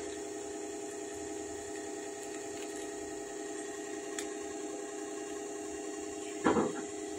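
Steady machine hum made of several even tones, with a brief clatter about six and a half seconds in.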